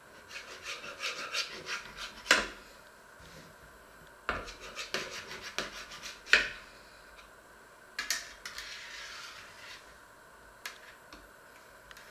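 A kitchen knife sawing through a fruit sheet cake in a metal baking tray: three runs of quick scraping strokes, the first two each ending in a sharp knock.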